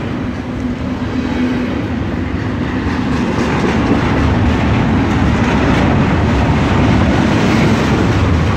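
Double-stack intermodal freight train of container-carrying well cars rolling past: a steady rumble and clatter of steel wheels on the rails, growing a little louder about three seconds in.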